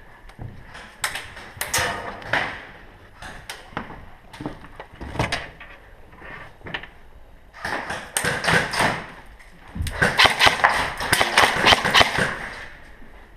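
Irregular knocks, thuds and clatter, becoming denser and louder about eight seconds in and again in a rapid run of clicks from about ten seconds to near the end.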